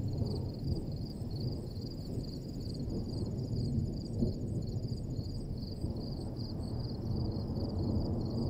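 Wind buffeting the microphone in gusts, a steady low rumble. Behind it, a faint high-pitched chirping pulses evenly, about three times a second.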